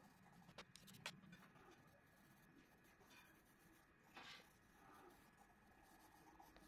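Very faint scratching of a coloured pencil shading on paper, with two light clicks near the start and a short, slightly louder scratch a little past the middle.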